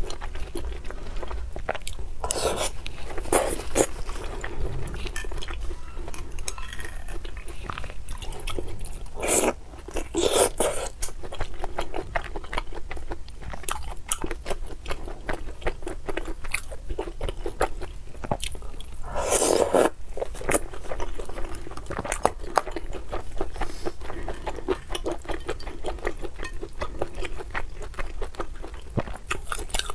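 Close-miked eating sounds: chewing and biting soft oden pieces, fish cake and kelp knots, with wet smacking and clicks. A few louder wet mouth sounds come at intervals.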